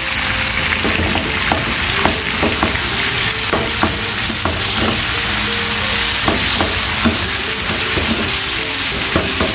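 Beef steak with sliced tomato, onion and chile sizzling in a frying pan, with irregular light clicks and knocks of tongs against the pan as it is stirred.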